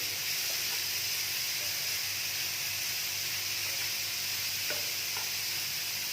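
Grated cauliflower sizzling steadily as it fries in hot oil with cumin seeds and green chilli, with a couple of light knocks about five seconds in.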